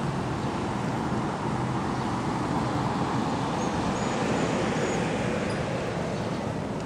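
Street traffic noise: a steady rush that swells in the middle as a vehicle passes by.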